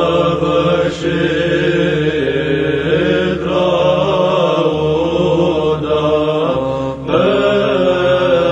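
Orthodox church chant: voices singing a slow melody over a steady low drone, with short breaks between phrases.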